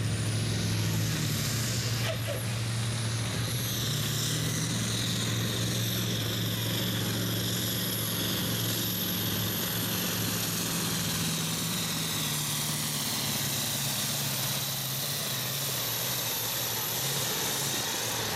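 Massey Ferguson 1155 farm-class pulling tractor, a Perkins V8 diesel, running flat out under full load while dragging the weight sled. It is a steady, heavy engine note with a high whine over it, and the note sags a little toward the end.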